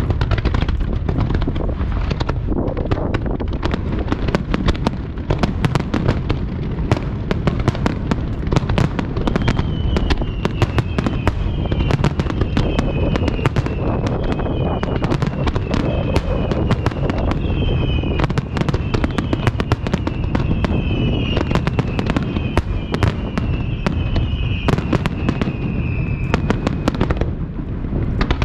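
Rapid-fire fireworks barrage (starmine): dense cracks and bangs one after another over a continuous rumble. From about ten seconds in until near the end, many falling whistles from whistling shells overlap.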